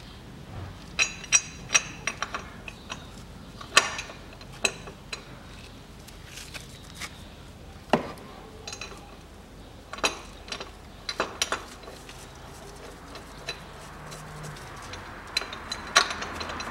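Irregular metallic clinks and knocks in small clusters, some with a short ring, as a steel idler-bearing bracket and its bolts are handled and set in place on an engine by hand.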